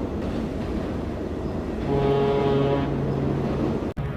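A ship's horn sounds one low, steady blast of about two seconds, starting about two seconds in, over a constant rumbling background. The sound cuts out briefly near the end.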